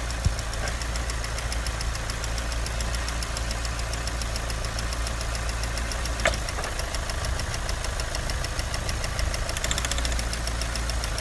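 Engine idling with a steady, rhythmic knock. A sharper click is heard shortly after the start and again about six seconds in.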